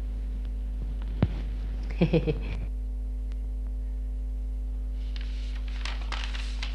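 Steady electrical mains hum on an old film soundtrack, with a single sharp click about a second in and a short vocal sound, like a grunt, around two seconds in.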